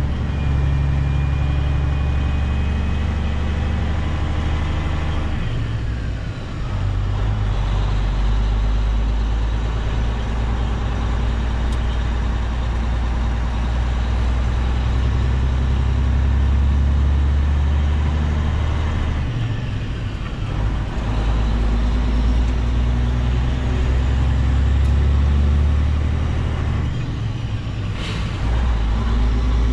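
Semi truck's diesel engine running steadily on the road; its note dips and changes three times, about 6, 19 and 28 seconds in.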